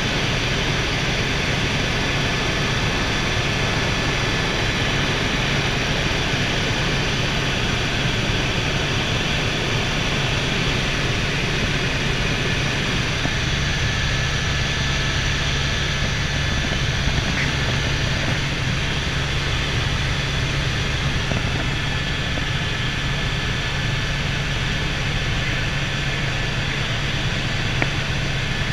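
Helicopter cabin noise in steady forward flight: engine and main rotor running with a constant low hum and a thin high whine.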